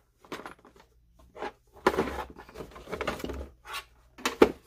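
Irregular knocks, rattles and clicks of hard plastic as tool accessories are pressed into and moved about in a blow-molded plastic storage case, with a sharp click near the end.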